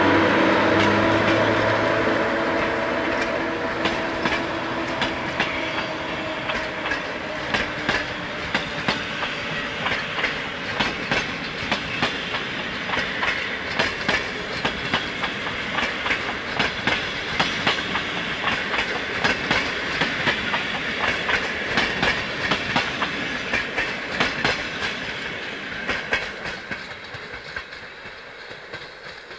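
Passenger train hauled by an EU07 electric locomotive passing close by. The locomotive's steady hum fades over the first few seconds. Then the coaches' wheels clatter in a quick rhythmic clickety-clack over the rail joints, growing fainter near the end as the train moves away.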